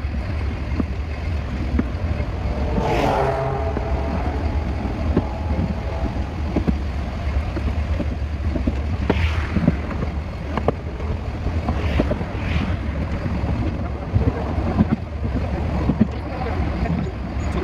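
Running noise of a narrow-gauge train heard from its front end: a steady low rumble with frequent short clicks.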